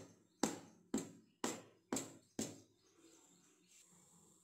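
A round steel tin filled with dhokla batter knocked against a wooden counter about six times, roughly two knocks a second, each a short sharp knock with a brief ring. The knocking stops about two and a half seconds in.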